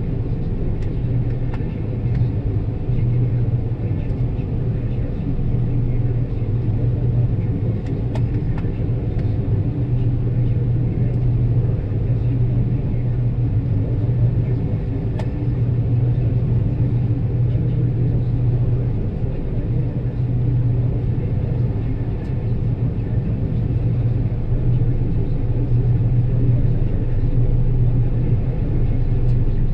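John Deere 9770 combine running steadily while harvesting soybeans: a constant low engine and machinery drone with a strong steady hum.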